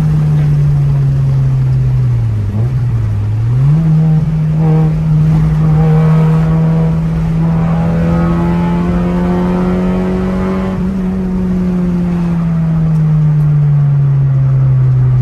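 A manual car's engine heard from inside the cabin while driving. Its pitch dips about two and a half seconds in and climbs straight back, holds steady, then falls gradually near the end as the revs drop.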